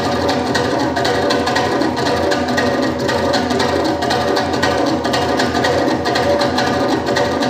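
Georgian folk dance music with a fast, steady percussion beat under sustained melodic instrument lines.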